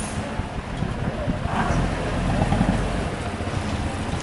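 Motor vehicle engines running in a steady low rumble, mixed with outdoor noise.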